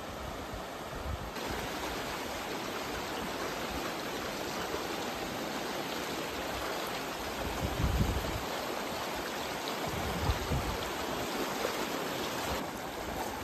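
Fast-flowing muddy floodwater rushing steadily, with a few short low buffets about eight and ten seconds in.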